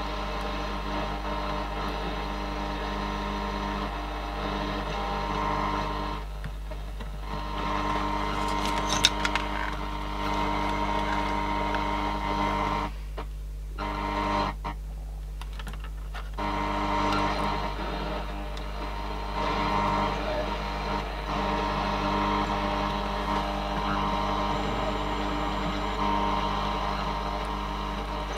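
Sanyo M-G95 Walkman's output played through an amplifier: a steady hum and buzzing interference, dropping out briefly a couple of times. The owner puts it down to interference picked up by the lead.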